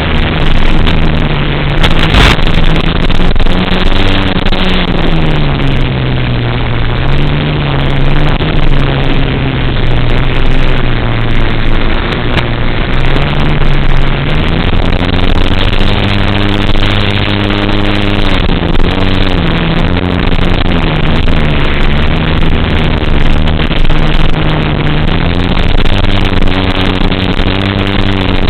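FPV racing drone's electric motors and propellers running in flight, their pitch rising and falling as the throttle changes, with heavy wind rush.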